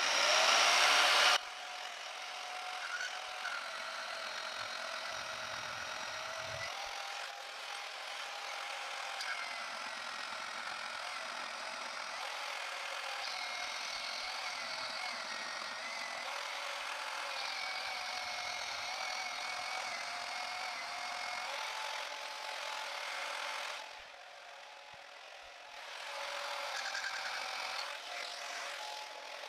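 Portable bandsaw in a vertical stand cutting a metal plate: the blade runs steadily through the metal with a wavering pitched whine as the plate is fed and turned. It is loudest in the first second or so, and the cutting eases for a couple of seconds about 24 seconds in before resuming.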